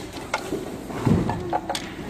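Small plastic clicks and knocks from a cable plug and plastic compartment housing being handled, with the loudest, duller knock about a second in.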